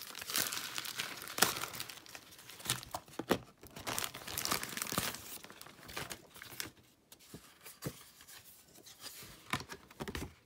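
A parcel's wrapping being torn open and crumpled by hand: crackling, crinkling and sharp snaps, busiest for the first six seconds, then sparser.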